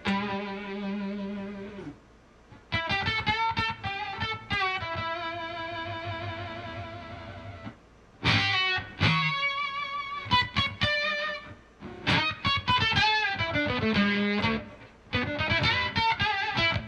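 Electric guitar played through an octave fuzz pedal into an amplifier, improvising lead lines. Sustained notes waver with vibrato, in phrases broken by short pauses.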